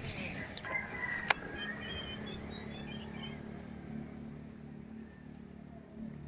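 Quiet riverside ambience at dawn: a low steady hum, faint short bird chirps in the first half, and one sharp click about a second in.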